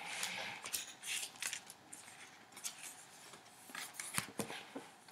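Thick cardboard pages and flaps of a board book being handled and turned over, a run of short scrapes and rustles with a soft knock near the end.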